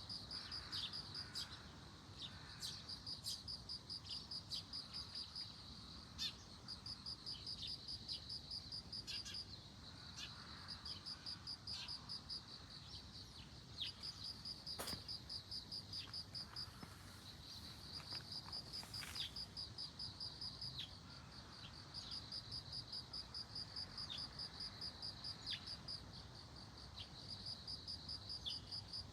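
Japanese bell cricket (suzumushi) singing: a high, bell-like pulsed trill in phrases of a second or two, repeating with short gaps, with scattered short ticks between.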